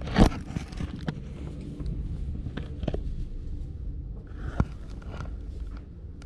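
Plastic snack bags rustling and knocking against the camera. There is a loud knock and rustle just after the start, scattered small clicks, and a sharper knock about four and a half seconds in, over a steady low rumble.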